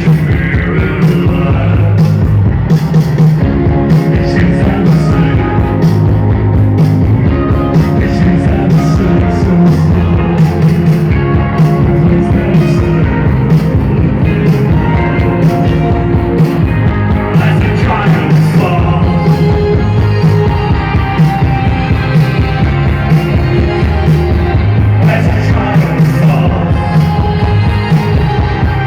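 Live band music, loud, with a steady driving drum beat under held synth and bass lines: a dark post-punk song played on stage.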